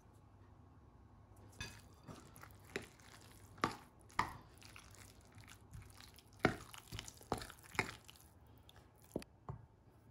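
Metal spoon stirring a wet mixture of minced chicken and grated zucchini in a glass bowl: irregular clinks of the spoon against the glass with soft squelching between them, starting about one and a half seconds in.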